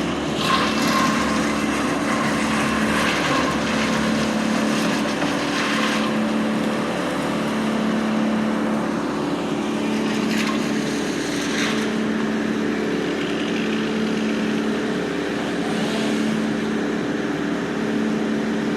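Diesel engine of a piece of heavy equipment running steadily at a constant speed, with occasional spells of rushing, scraping noise over it.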